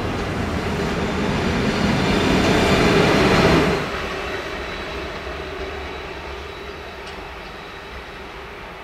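Two coupled SBB electric locomotives running light, with no train behind them, passing on the rails. Wheel and running noise build to their loudest about three and a half seconds in, then drop and fade as the locomotives move away, leaving a steady hum.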